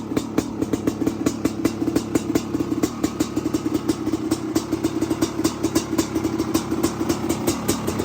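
Honda CR500's single-cylinder two-stroke engine idling after a cold start, with an even, rapid popping rhythm.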